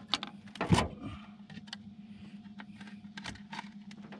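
Knocks and rattles in the bottom of an aluminum jon boat as a just-caught crappie is handled for measuring, with the loudest thump under a second in and fainter ticks after, over a steady low hum.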